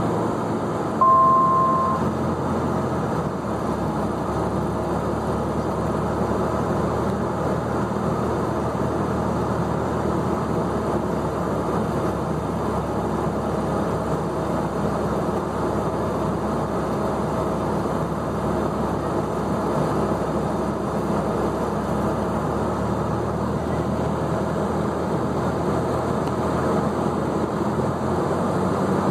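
Cessna 172SP's four-cylinder Lycoming IO-360 engine and propeller droning steadily in flight, heard from inside the cabin. About a second in, a short electronic beep sounds for about a second.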